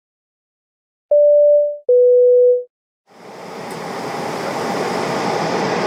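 Two short electronic tones, the second a little lower than the first, as a logo chime. Then the steady rushing drone of a Boeing 777-223ER's cabin in flight, heard from a window seat: engine and airflow noise, fading in about three seconds in.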